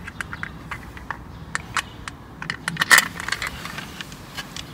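Small clicks and light rattles from hands handling a mounting screw and the black side cover of a motorcycle radiator guard, fitting the cover against the guard, with one louder click about three seconds in.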